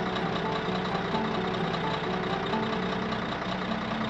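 Cartoon sound effect of a toy excavator's engine running steadily as it drives along.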